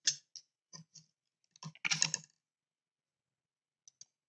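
Light clicks and taps of a small screwdriver and model-car chassis parts being handled: about half a dozen in the first two and a half seconds, the loudest cluster about two seconds in, then two faint ticks near the end.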